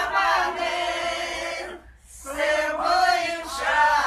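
A group of voices, mostly women, singing a Kazakh song together in long held notes, with a brief pause for breath about two seconds in.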